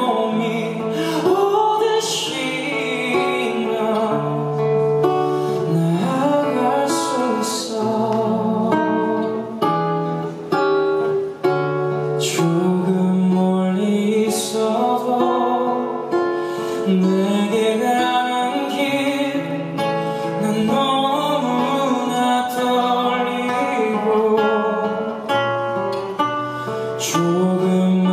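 A man singing live into a handheld microphone, holding long notes with vibrato, to acoustic guitar accompaniment.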